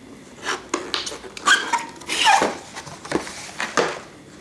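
Cardboard box being handled and opened: a run of scraping and rustling sounds, with a few short squeaks as the cardboard rubs.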